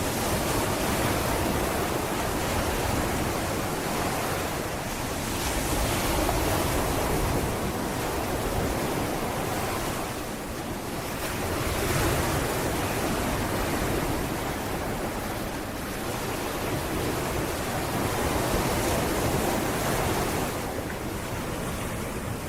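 Sea waves breaking and washing up a sandy beach, the surf swelling and easing about every five or six seconds.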